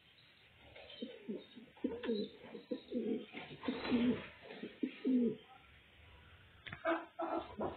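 Domestic fancy pigeons cooing, a run of low, repeated coos from about a second in until just past five seconds, with more sounds starting again near the end.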